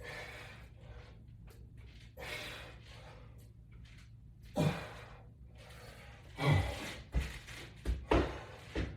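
A man breathing hard through a resistance-band workout, with sharp exhales every second or two that come faster near the end, some with a dull knock.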